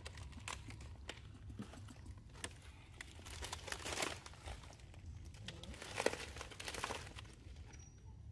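Irregular rustling and crinkling with scattered clicks, louder about four seconds in and again around six to seven seconds in.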